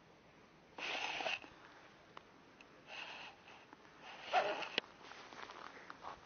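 A person sniffing three times close to the microphone, each sniff short and hissy, about a second and a half apart, the last the loudest.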